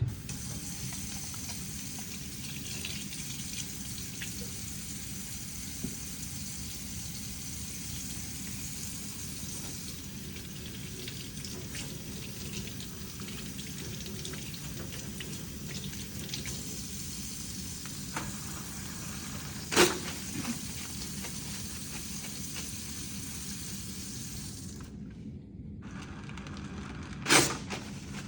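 Steady background hiss of room or recording noise, broken by two short, sharp knocks, one about two-thirds of the way through and one near the end.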